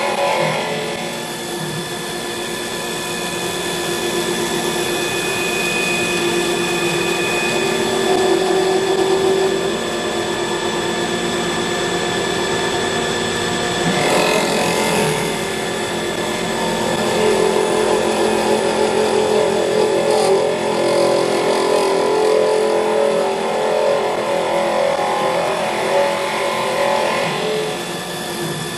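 CNC wood lathe hollowing the inside of a spinning wooden blank: a steady machine whine with the scraping of the cutting tool in the wood, swelling and easing as the tool works.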